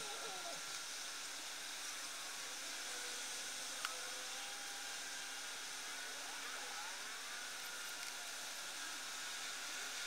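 Steady low hiss of room tone, with one short click about four seconds in.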